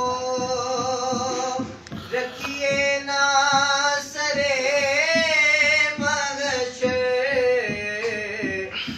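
A man's voice singing a naat, a devotional recitation, in long drawn-out phrases: held notes that waver in pitch, with a short break for breath about two seconds in.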